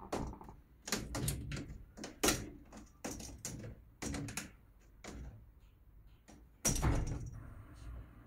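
A cat clambering on a mesh window screen: irregular rattles, taps and knocks of the screen and its frame. Near the end comes a loud clack as the pet flap in the screen swings while the cat pushes through it.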